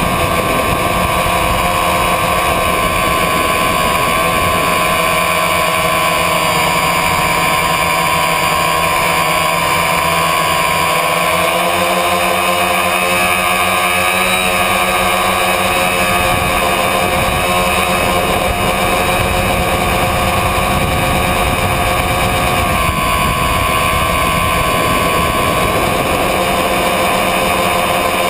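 Tricopter's three electric motors and propellers running in flight, heard from the onboard camera: a loud, dense whine of several steady tones that drift up and down in pitch as the motor speeds change. The motors run without cutting out.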